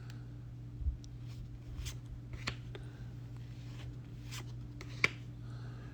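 Trading cards being handled and slid against each other, with a few scattered sharp clicks and snaps over a steady low hum.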